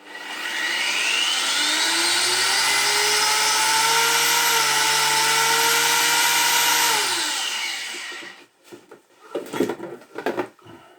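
Kraft angle grinder's electric motor spinning up with a rising whine, running steadily for about five seconds, then switched off and spinning down. A few short knocks follow near the end as the tool is handled.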